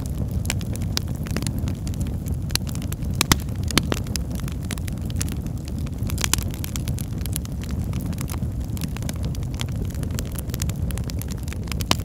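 Wood fire crackling: irregular sharp pops and snaps over a steady low rumble, with a couple of louder pops about three and four seconds in.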